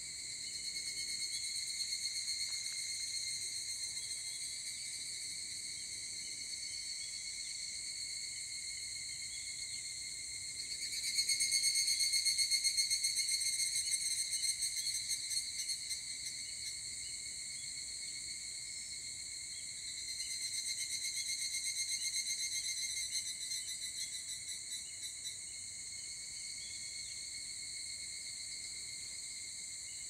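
A chorus of higurashi (evening cicadas, Tanna japonensis) singing: a high, rapidly pulsing trill that runs on throughout. A nearer cicada swells up loudly about a third of the way in and trails off over several seconds, and another does the same about two-thirds of the way in.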